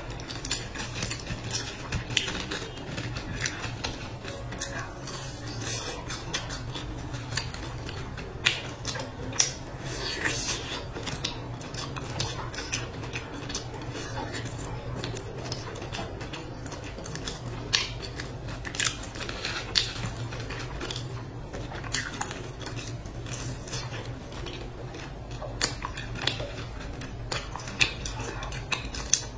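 Close-up eating sounds: bites and chewing of a fried sweet pastry, with many short, sharp crackling clicks scattered throughout, over a steady low hum.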